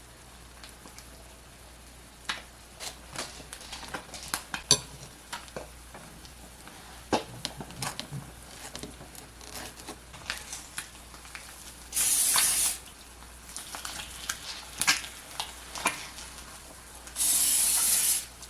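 Breakfast being cooked: scattered clinks and taps of utensils and dishes, with two short bursts of hissing, one about twelve seconds in and one near the end.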